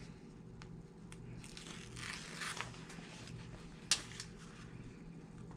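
Faint rustling and crinkling of a strap being folded and pressed down by hand onto double-sided tape, with a few small clicks and one sharper tick about four seconds in.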